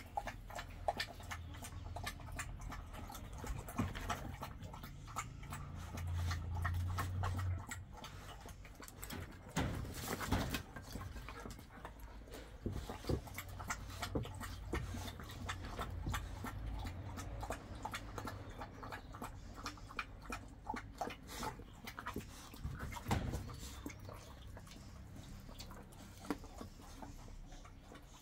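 Two young dogs eating from a metal bowl: a busy run of small, irregular clicks and smacks from chewing and from the bowl, with a few louder knocks.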